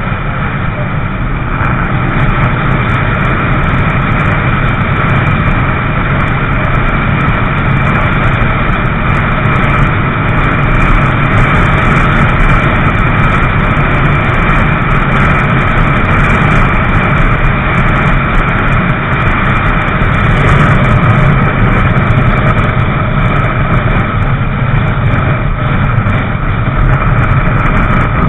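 Motorcycle cruising at a steady freeway speed: the engine holds an even note under heavy wind noise on the microphone.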